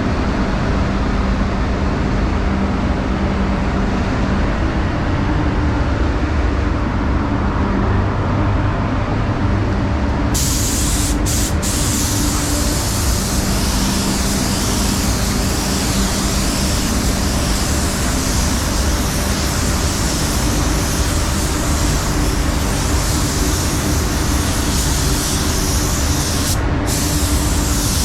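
Paint spray booth's ventilation running with a steady rushing hum; about ten seconds in, a spray gun starts hissing as it lays on a coat of pearl, the hiss breaking off briefly twice soon after and once near the end as the trigger is let go.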